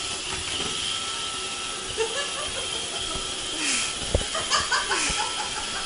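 Robot vacuum cleaner running: a steady whine and hiss from its motor and brushes, with a few sharp knocks about four seconds in.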